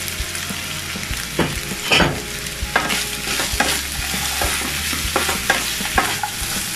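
Carrot, potato and hotdog strips sizzling in hot oil in a non-stick frying pan as they are stirred with a wooden spatula, with the spatula knocking and scraping against the pan every second or so.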